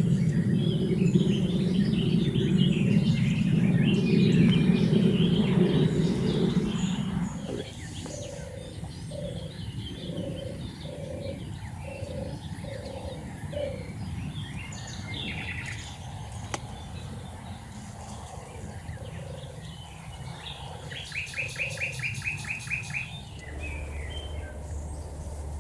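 European turtle dove purring: a row of short, low, soft notes repeated a little under twice a second, among higher songbird chirps. A loud low rumble fills the first seven seconds or so, and near the end another bird gives a fast trill.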